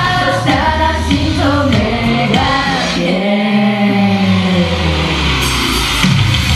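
Upbeat J-pop idol song performed live through the venue's PA system, with singing over a full band-style backing track.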